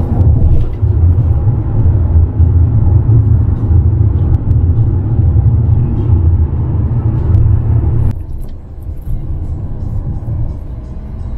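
Steady low road rumble inside the cabin of a moving car. The sound drops and thins about eight seconds in.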